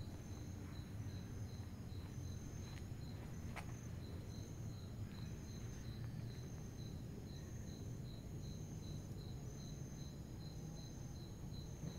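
Crickets chirping steadily at night: one in short pulses about three times a second, another in longer, higher chirps, over a low background rumble. A single sharp click sounds about three and a half seconds in.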